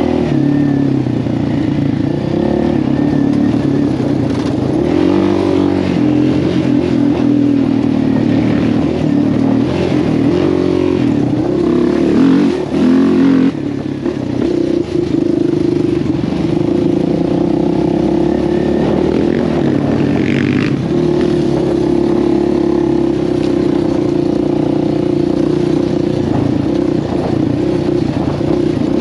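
Quad bike engine running under changing throttle while riding off-road, its revs rising and falling, easing off briefly about twelve seconds in before picking up again.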